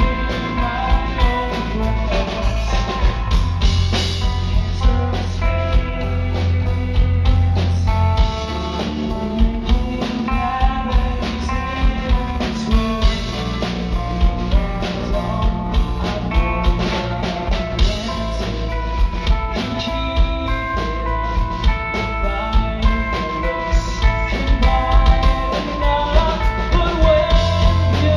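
Rock band playing live: a man singing over electric guitar, bass guitar and drums with a steady beat.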